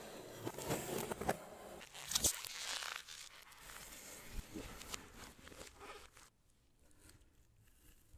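Close-miked handling of smartwatch packaging: rustling, scraping and crinkling with a few small clicks. It is busiest in the first three seconds, then quieter, and almost still for the last two seconds.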